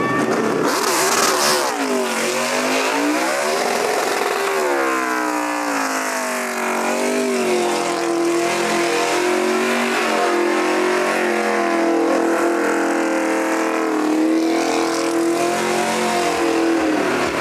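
NASCAR Toyota Camry stock car's V8 engine revving hard while the car spins doughnuts with its rear tyres spinning and smoking. The pitch swings up and down several times, holds high and fairly steady through the middle, then swings again near the end.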